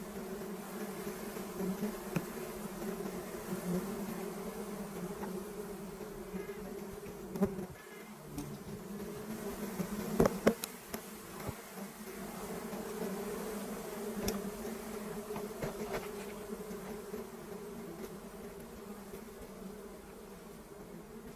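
Honeybees buzzing steadily in a low hum, with a few sharp knocks about halfway through.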